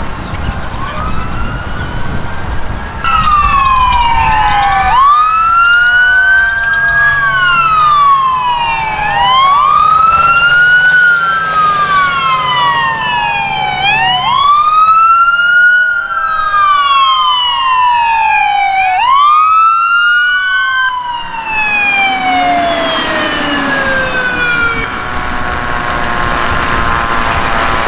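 Emergency vehicle siren wailing: a loud tone that sweeps up quickly and falls slowly, repeating about every four seconds, then winds down in one long falling glide near the end.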